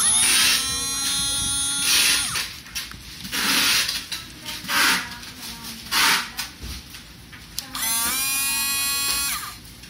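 Portable blender's small electric motor switched on twice by its push button. Each time it gives a high whine that rises in pitch as it spins up, runs about two seconds, then stops, with a few short noisy bursts in between.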